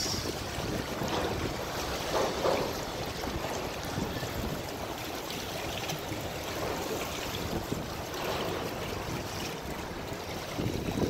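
Choppy river water lapping and splashing, with a soft rush of wind noise.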